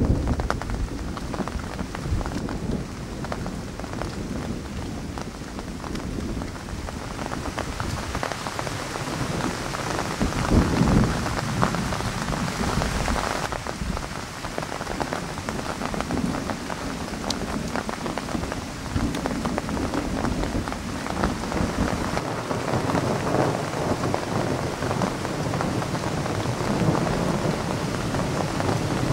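Thunderstorm: steady rain pattering throughout, with low rolling thunder rumbling underneath. The thunder swells loudest about ten seconds in.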